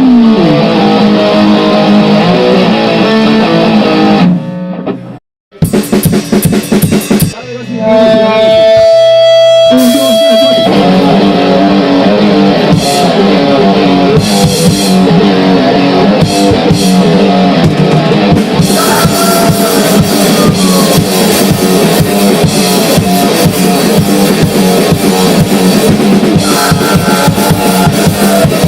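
Grind-noise band playing: distorted electric guitar and drum kit. The music drops out briefly about four seconds in, then comes back with separate hits and a steady held tone, and the full band comes back in about ten seconds in.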